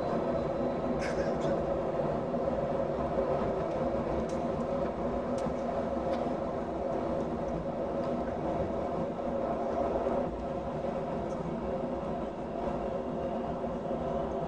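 Airbus A319 cabin noise during a slow taxi: the steady hum of the jet engines at low thrust, with a few constant tones running through it, heard inside the cabin.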